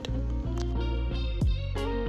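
Instrumental background music with sustained notes and a regular beat.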